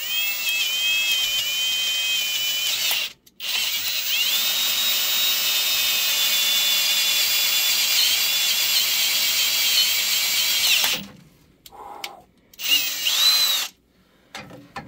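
Cordless drill running a new 5/16-inch bit into a bolt broken off deep in an engine block's threaded hole. It gives a steady motor whine in a run of about three seconds, then a longer run of about seven seconds after a brief stop, and ends with two short bursts that rise and fall in pitch.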